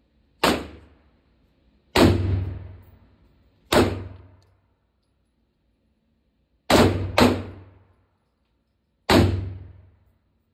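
Six gunshots fired at uneven intervals, two of them about half a second apart, each followed by a short echoing tail off the walls of an indoor shooting range.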